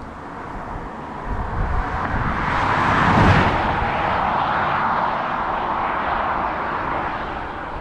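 A 2022 Audi e-tron GT electric car driving past at speed. Its tyre and road noise swells to a peak about three seconds in, then fades as the car pulls away.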